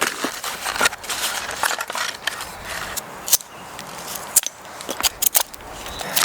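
Dry wood being handled and worked for a hand-drill fire set: irregular crackles, snaps and short scrapes, a few sharp cracks standing out, the loudest about three seconds in and again around five seconds.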